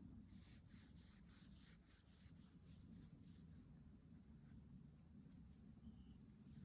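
Faint, steady high-pitched trill of crickets.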